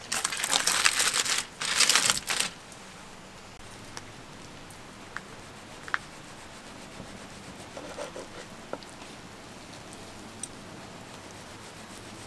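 Aluminium foil crinkling as it is pulled open from around a rested roast beef, for about two and a half seconds. After that it goes quiet but for a few faint ticks.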